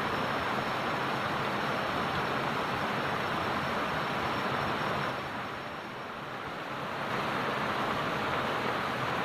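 Steady rush of water from a small rocky stream flowing below a concrete weir, dipping a little in loudness for about a second past the middle.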